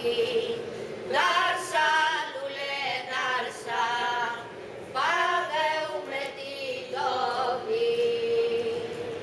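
A small group of women singing unaccompanied, in phrases that slide in pitch and settle on held notes; near the end one long note is held for over a second.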